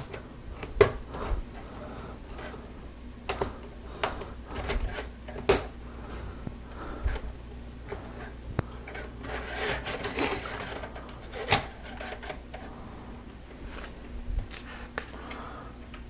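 Plastic Lego Technic beams and pins clicking and snapping as they are pressed together by hand, in irregular sharp clicks with some rubbing and rattling between them.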